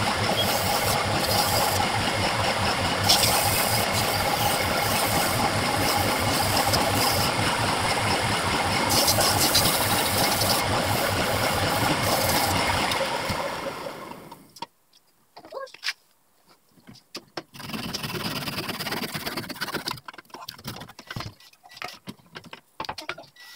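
Wood lathe running steadily, then switched off about thirteen seconds in and winding down to a stop. Afterwards come scattered light clicks and knocks of handling.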